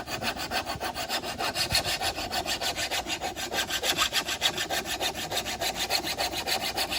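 Flat file scraping along the cutting edge of a steel lawn mower blade in quick, evenly repeated strokes, taking metal off to sharpen the dull blade.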